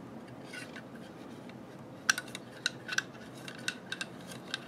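Light metallic clicks and taps, irregular and several in a row from about two seconds in: a cleaning rod knocking against a rifle barrel and upper as a cloth patch is worked into the bore.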